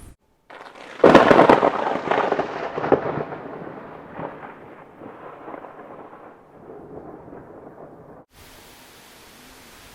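A thunderclap: a sharp crack about a second in, then rolling rumble that fades away over several seconds and cuts off. A steady hiss starts near the end.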